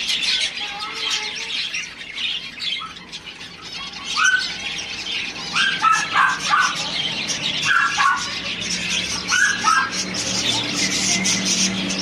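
A flock of caged zebra finches calling: a dense stream of many overlapping short calls, with louder downward-sliding calls every second or two. A low steady hum joins in about eight seconds in.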